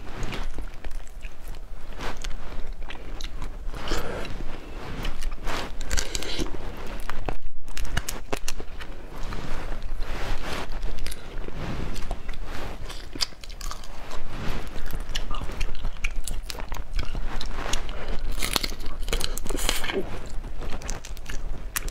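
Close-miked eating of garlic crayfish: shells cracked and pulled apart by hand, with biting and chewing, heard as a dense run of irregular crackles and crunches. There is a brief break in the sound about seven and a half seconds in.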